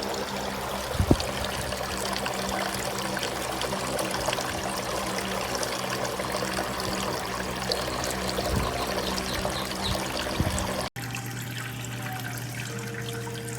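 Water trickling and splashing down a freestanding waterfall fountain, with a steady low hum beneath and a sharp knock about a second in. Near the end the sound cuts off abruptly and gives way to something quieter with a few steady tones.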